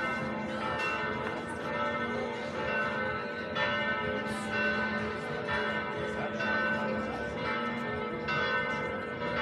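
Church bells ringing: a new strike comes roughly every second at uneven spacing, and each one rings on and overlaps the next.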